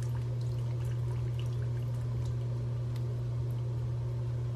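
Water draining from a toilet tank through the opening left by the removed fill valve, pouring into a catch container. A steady low hum runs under it throughout.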